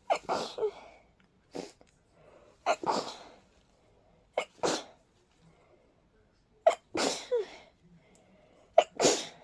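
A person with a cold sneezing over and over in a rapid fit: five sharp sneezes, one every second and a half to two seconds, from a stuffy, sensitive nose.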